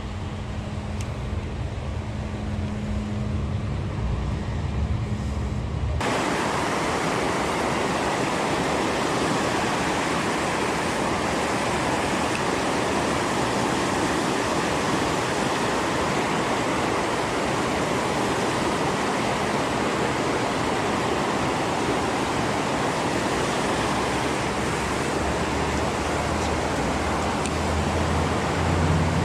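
Rushing river water, a steady loud rush. About six seconds in it switches abruptly from a quieter background with a low hum to the full rush of the water.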